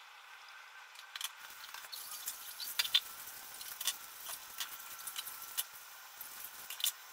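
Dishes and pans clinking and knocking as they are handled at a kitchen sink during washing up: scattered sharp clinks, the loudest just before three seconds in and again near the end, over a faint steady hiss.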